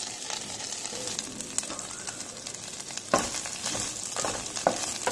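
Fresh drumstick (moringa) leaves sizzling in a hot nonstick kadai as they are tipped in and stirred with a wooden spatula, with small crackles throughout. The spatula knocks against the pan twice, sharply, about three and four and a half seconds in.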